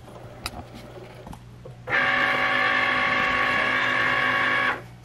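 Cricut cutting machine's motors running with a loud, steady whine for about three seconds, starting and stopping abruptly, after a few faint clicks.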